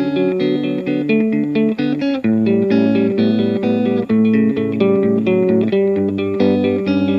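Instrumental intro of a song: guitar picking a repeating pattern of notes over a bass line, with the harmony changing about two seconds in and again near six seconds.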